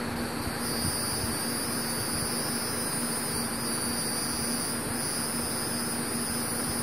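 Steady outdoor insect chorus: a high, even buzzing drone that comes in about half a second in, over a constant low hum and hiss.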